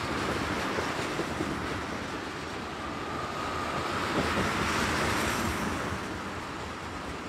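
Loaded crude oil tank cars of a freight train rolling steadily past close by, their steel wheels running on the rails with a few faint knocks. A thin, faint squeal rises and fades about halfway through.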